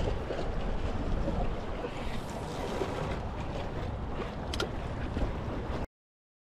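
Wind buffeting the microphone over water lapping around a small boat on open sea, with one brief click about four and a half seconds in. The sound cuts off abruptly to silence near the end.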